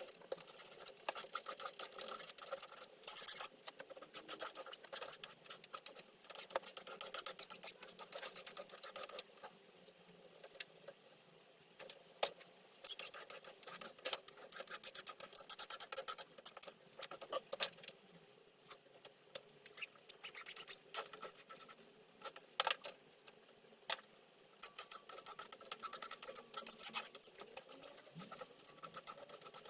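Hand file scraping along the edges of a freshly cut steel piece clamped in a vise, in runs of strokes with short pauses and small metallic clinks.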